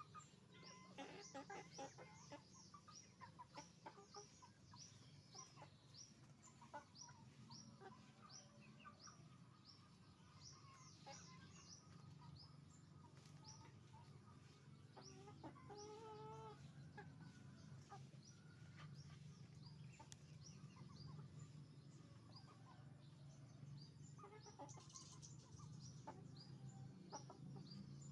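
A flock of chickens clucking, with a rooster crowing once midway, over a steady run of short, high, falling chirps about twice a second.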